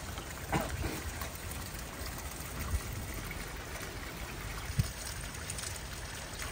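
Light rain falling steadily, with water trickling, and a few brief knocks.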